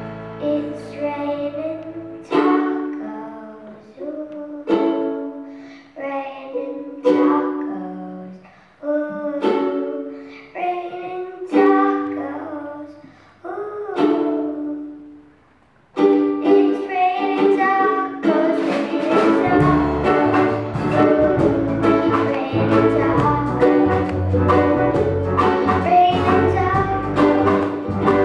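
Ukulele chords strummed one at a time, each ringing out and fading. About 16 s in, continuous rhythmic strumming begins, and a few seconds later an electric bass line joins it underneath.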